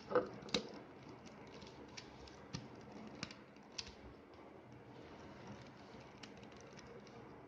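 Faint, irregular plastic clicks from a YuXin Little Magic 3x3 speedcube being handled and worked apart to get at its pieces, about a dozen in all, with a stronger pair near the start.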